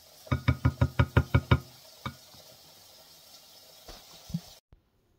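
A spoon rapped quickly against a white mixing bowl, about eight knocks in just over a second, then one more knock and a couple of light taps.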